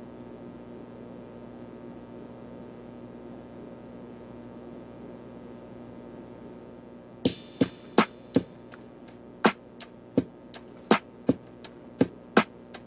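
Quiet background music: a soft held drone, then from about seven seconds in a run of sharp, ticking percussion clicks at about two to three a second.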